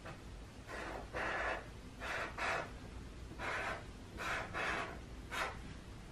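Sharpie marker drawing on paper: a series of short scratchy strokes, about eight, some coming in quick pairs.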